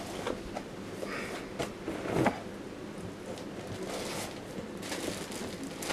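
Handling noise: rustling and light knocks as denim jeans are moved and a gloved hand reaches into a cardboard box. The loudest sound is a brief thump about two seconds in.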